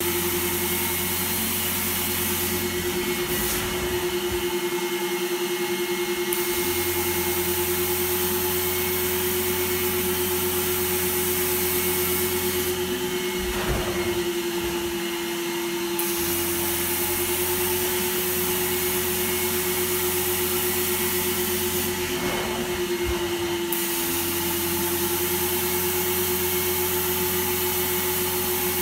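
Carpet extraction machine's vacuum motor running steadily with a constant whine as the cleaning wand is drawn across the carpet. A brighter hiss of air and water rises and falls away three times.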